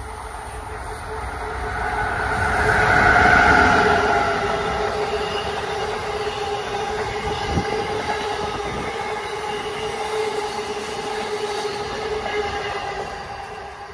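Amtrak Northeast Regional train behind an ACS-64 electric locomotive passing at speed: the rush swells to its loudest as the locomotive goes by about three to four seconds in, then the Amfleet coaches roll past with a steady ringing hum from wheels on rail, dying away near the end.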